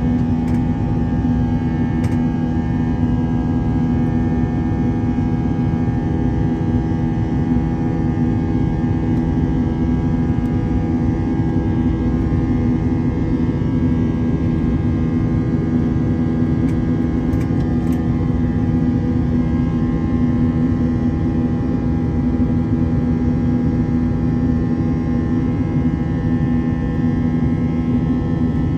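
Jet airliner's turbofan engines running at steady power while climbing after takeoff, heard inside the cabin over the wing: a steady rush with a low hum and several steady tones.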